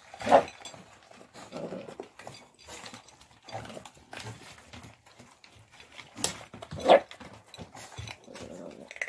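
A pug's irregular, snorting breaths and snuffles as dogs eat at a food bowl, with the sharpest snorts just after the start and around six to seven seconds in. The breathing is strange and laboured, a sign of the old pug's poor condition.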